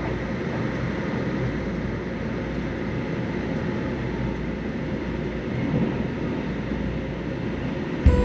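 Steady rumble of a train running, with a few faint steady tones in it. Music comes in near the end.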